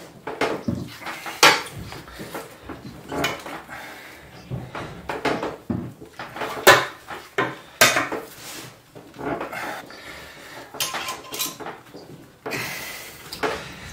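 Wire being coiled by hand around a steel rod clamped in a bench vise, the rod turned by locking pliers: irregular metallic clicks, clinks and knocks. Near the end comes a steady hissing noise lasting about a second and a half.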